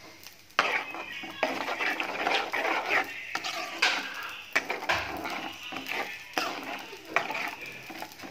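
A spoon stirring and scraping round a metal pot of thin kurma curry, with clinks of the spoon against the pot's sides. It starts about half a second in and goes on in uneven strokes.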